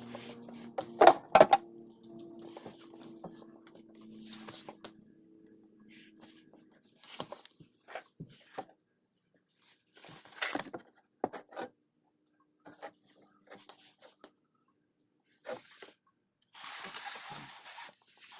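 Scattered metal clinks and knocks from handling the transmission oil pan, filter and bolts, the loudest about a second in, with a brief ringing after the first knocks. A short hiss near the end.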